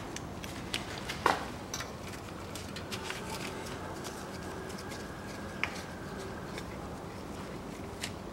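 Scattered metallic clicks and taps of an 8 mm socket on an extension, worked by a screwdriver-style handle, as the engine oil pan's perimeter bolts are loosened, the loudest click about a second in. A faint steady hum lies underneath.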